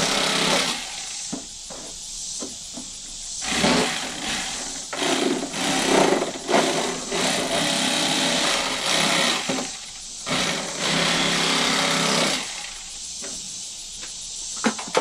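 Electric fillet knife buzzing in on-and-off runs while cleaning small bluegill: a short run at the start, a long one of several seconds in the middle, and another briefly after it, with quieter gaps of small clicks between.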